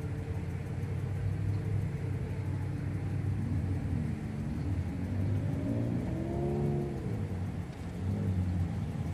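A 2.5-inch FPV quadcopter's 6000KV brushless motors buzzing over a low steady rumble, their pitch rising and falling a few times about halfway through as the throttle changes.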